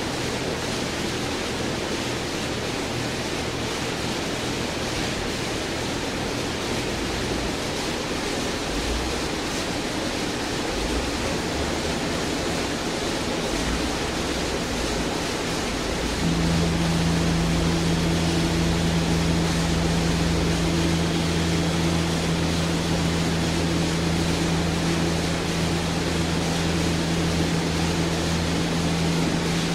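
Vacuum pumps of a Laguna SmartShop 1 CNC router running with a steady rushing noise. About halfway through, another motor on the machine starts up and a steady low hum joins in.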